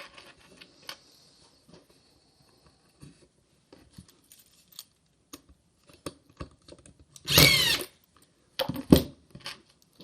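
Small knocks and rustles of the wooden nest-box pieces being handled and lined up, then two short loud bursts of noise, one about seven seconds in and one about nine seconds in.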